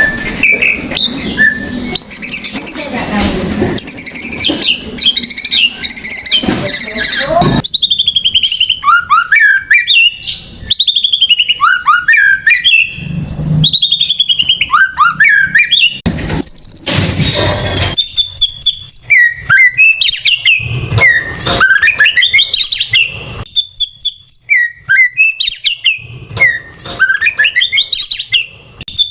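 White-rumped shama (murai batu) singing a loud, varied song of whistled phrases: rising and falling glides and quick trills with short pauses between phrases. It is a lure song of the kind played to provoke other shamas into singing. For the first several seconds a haze of background noise lies under the song.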